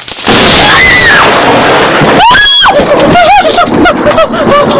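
Close thunderclap breaking suddenly about a quarter second in and overloading the microphone, staying loud throughout. A person screams about two seconds in, followed by a string of short rising-and-falling cries.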